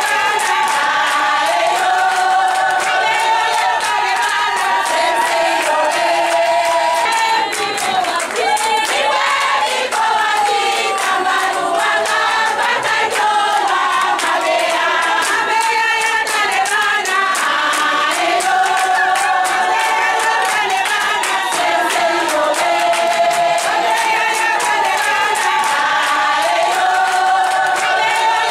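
A large group of women singing a song together in chorus, with hand clapping keeping time.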